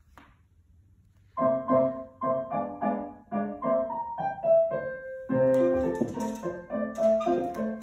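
Piano music accompanying a ballet barre exercise, starting about a second and a half in after a near-silent pause, with a rhythmic run of notes and chords.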